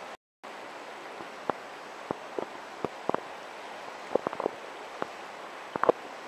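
Steady rush of a river flowing over rock shelves below falls, with scattered light ticks and plinks scattered through it. The sound drops out for a moment at the very start.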